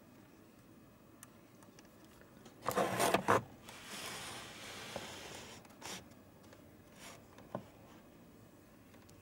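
Handling noises: a loud scraping, rustling burst about three seconds in, then a couple of seconds of softer rubbing and a few light clicks.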